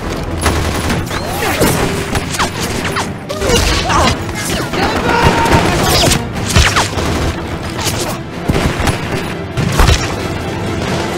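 Movie-style gunfire: scattered shots and impacts at irregular intervals, the loudest near the end, over background music.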